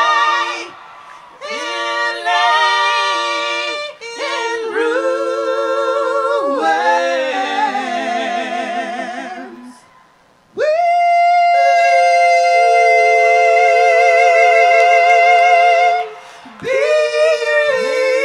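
A cappella vocal harmony: several voices singing long held chords with vibrato. The phrases break off briefly about a second in, near four seconds, around ten seconds and again around sixteen seconds.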